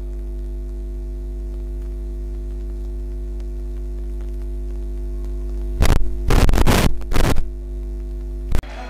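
Steady electrical mains hum from a sound system. About six seconds in it is broken by a cluster of loud crackling bursts of noise, then a sharp pop near the end, after which the hum drops.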